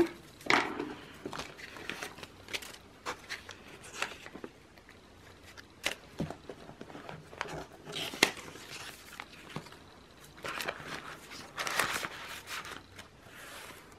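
Paper banknotes rustling while being handled and slid into a clear plastic zipper pouch in a ring binder, with crinkling of the plastic and small clicks, in short clusters.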